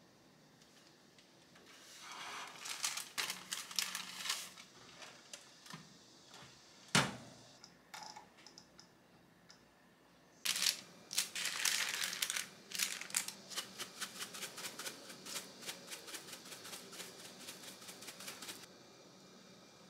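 Parchment paper crinkling as a pizza is slid into a toaster oven, then a single knock as the oven door shuts. Several seconds later the oven's dial clicks rapidly as it is turned to set the temperature and time, settling into an even run of ticks that stops abruptly near the end.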